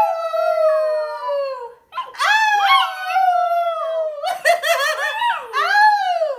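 A Pomsky puppy and a woman howling together: two long drawn-out howls that slide slowly down in pitch, then, from about four seconds in, shorter wavering howls that rise and fall.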